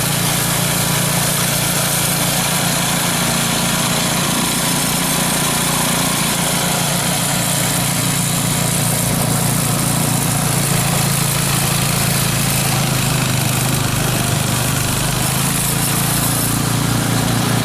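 A gas snowblower's small engine running steadily, with the whoosh of snow being thrown; its pitch shifts a little about twelve to sixteen seconds in.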